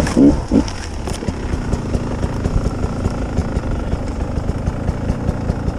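Two-stroke Beta enduro motorcycle engine, blipped twice in the first second, then running low and steady close to idle.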